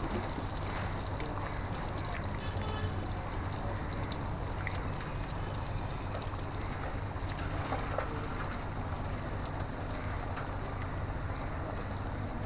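Battered telebhaja fritters deep-frying in a large kadai of hot oil: a steady sizzle with constant fine crackling. A steady low hum runs underneath.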